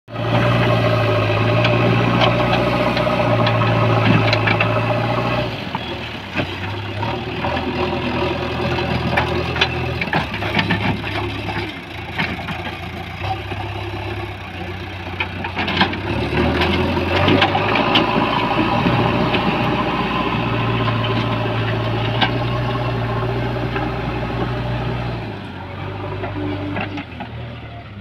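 JCB backhoe loader's diesel engine working under load, its pitch and level stepping up and down with the throttle, loudest over the first five seconds or so. Scattered knocks and clanks from the front bucket pushing soil and stones.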